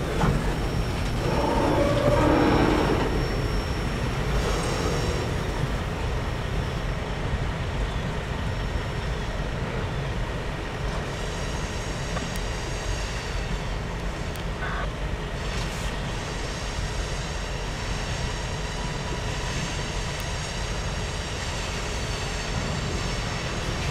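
Tail end of a CSX freight train rolling past and moving away down the track: a steady low rumble of wheels on rail, louder for a couple of seconds near the start as the last boxcar goes by.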